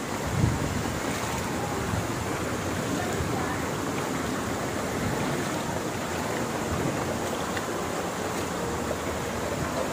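Shallow rocky stream rushing steadily over stones, with one brief thump about half a second in.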